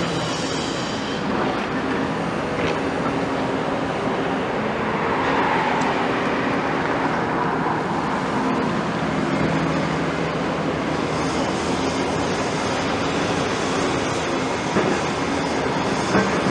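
Diesel engines of crawler excavators running steadily as the machines work, with a high whine that fades in the first second and returns about two-thirds of the way through, and a few short knocks near the end.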